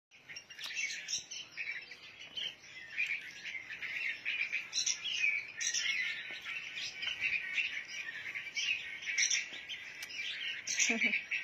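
Baby birds giving rapid, high begging chirps, several calling over each other without pause, as chicks do when being hand-fed.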